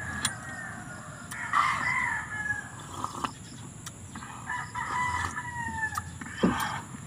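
A rooster crowing: two long calls about three seconds apart, with a few short clicks of a spoon against a metal pan.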